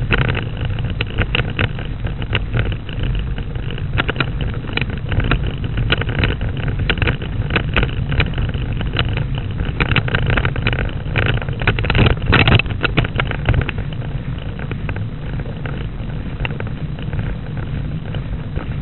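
Steady low rumble with frequent sharp rattles and clicks from a bicycle-mounted camera while the bike is ridden along a road: road vibration and mount rattle, with some wind on the microphone.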